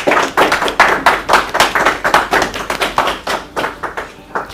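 A small group of people clapping, quick overlapping hand claps that die away near the end.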